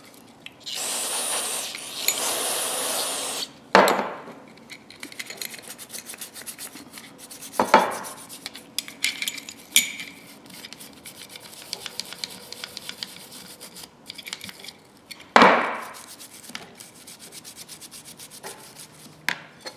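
An aerosol spray can hissing for about three seconds, then a small wire brush scrubbing rust off steel locking pliers in quick, rapid strokes, broken by three sharp knocks.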